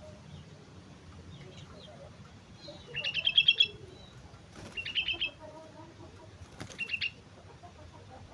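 Sooty-headed bulbul (kutilang) calling: three short bursts of rapid, clipped high notes about two seconds apart, the first the loudest.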